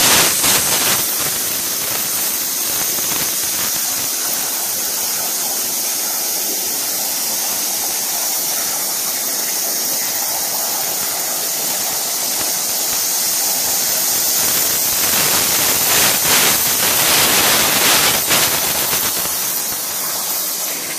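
Hypertherm MAXPRO200 plasma torch cutting metal plate on a CNC table: the plasma arc gives a loud, steady hiss, swelling for a few seconds late on.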